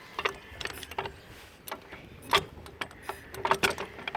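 A jack being worked to lift a riding lawnmower: irregular metallic clicks and knocks, several with a short squeak.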